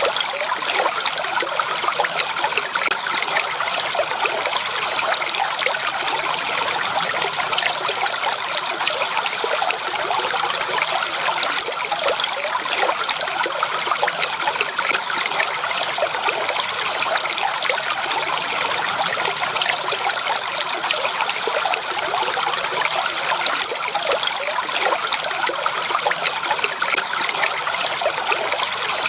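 Flowing stream water, a steady trickling and babbling that doesn't change over the stretch.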